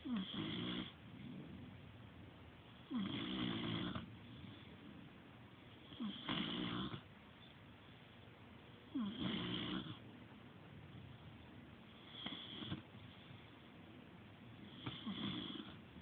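A sleeping pet snoring in a slow, even rhythm: six snores about three seconds apart. Each starts with a brief falling-pitched rattle and has a breathy hiss.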